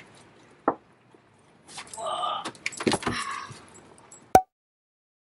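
A Great Pyrenees scrambling up into an SUV's cargo area: claws clicking and scraping on the plastic bumper and cargo mat, with his leash clinking. A single sharp knock comes about four seconds in.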